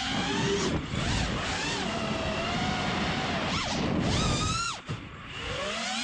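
FPV quadcopter's brushless motors whining, their pitch swinging up and down with the throttle. There is a sharp throttle cut just before five seconds in, then a climb back up. The quad has a bad motor that gave it a weird noise and vibration.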